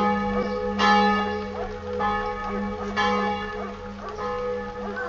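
Church bell tolling: a few separate strokes, each ringing on and fading slowly into the next.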